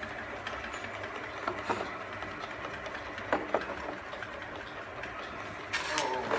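Automatic bottle labeling machine running steadily, glass jars on its conveyor clicking against each other now and then, with a louder clatter of glass near the end.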